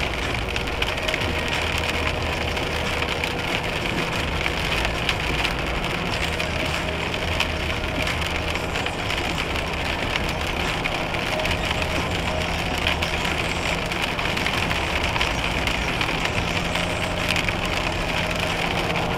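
Steady road and tyre noise inside a car cruising at motorway speed on a wet road, with a dense crackle of small ticks over it.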